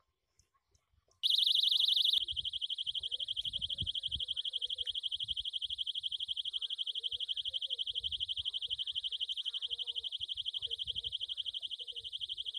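Sensor-triggered electronic alarm buzzer of a homemade animal-scaring system sounding: a high-pitched tone switches on about a second in, loudest for its first second, then continues as a rapid, even pulsing beep.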